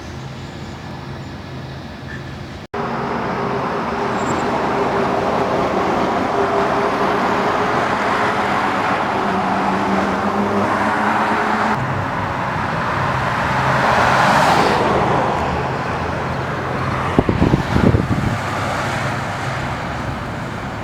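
A car driving: a steady engine hum with road and tyre noise that swells for a moment past the middle, and a few short knocks near the end.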